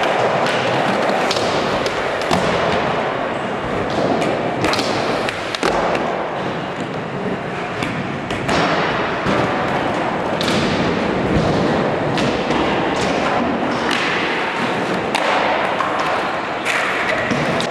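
Skateboards rolling over wooden ramps and concrete, with many sharp clacks and thuds at irregular times as boards pop, hit rails and ledges, and land.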